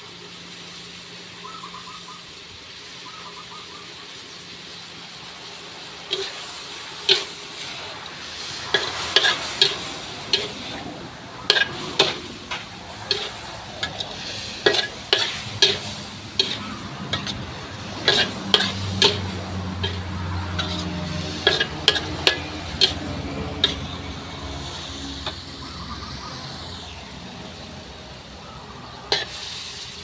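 Stir-fry of mixed seafood and onion sizzling in a large metal wok. From about six seconds in, a metal spatula scrapes and clanks irregularly against the wok for some twenty seconds as the food is tossed, with one more clank near the end.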